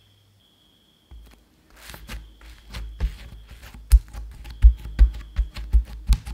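A hand pressing and patting a ball of bread dough flat on a silicone baking mat: a run of irregular dull thumps with small clicks, starting about a second in and coming louder and closer together in the second half.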